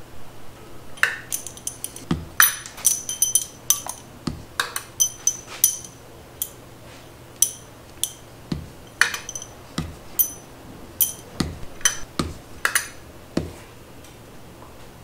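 Chromoly pushrods clinking against one another and against the engine's metal as they are handled and set into the cylinder head, a run of sharp metallic clinks with a bright ring. The clinks come thick and fast for the first few seconds, then about once a second until near the end.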